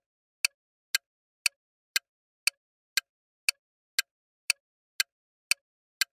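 Countdown-timer ticking sound effect: sharp, clock-like ticks at an even pace of about two a second, stopping near the end.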